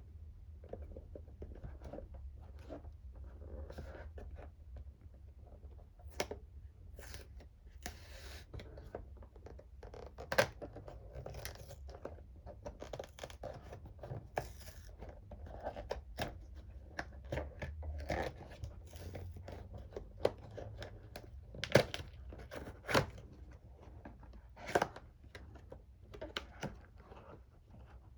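Packaging being handled and opened by hand: irregular rustling and tearing with many sharp clicks and taps.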